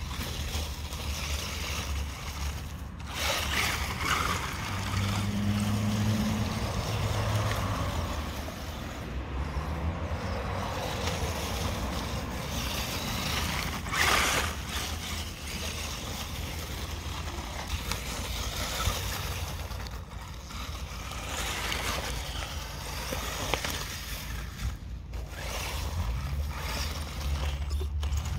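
WLToys 12427/12428 RC buggy driving over leaves, grass and paving: its brushed electric motor whirring and changing pitch under steady rushing noise, with one brief louder rush about halfway through.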